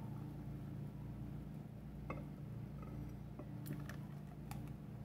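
Frothy strawberry milkshake pouring from a blender jar into a glass: a faint, soft pour with a few light clicks, over a steady low hum.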